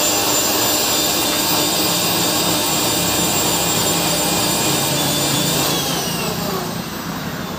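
Electric mixer-grinder motor running at high speed with a steady whine. It is switched off a little past halfway through, and the whine falls in pitch as the motor winds down.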